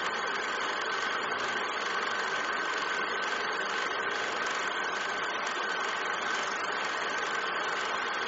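A steady, even whirring noise with a faint high hum running through it, like a small machine running, with no music.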